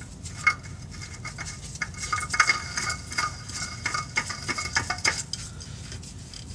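Light metallic clicks and scrapes as a spin-on oil filter is screwed onto its mount by hand, busiest in the middle and stopping about five seconds in.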